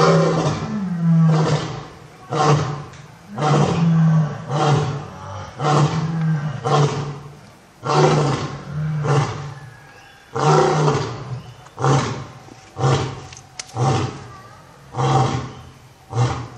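Lion roaring in a long bout: a string of deep roars repeating about once a second, the later ones shorter and more clipped.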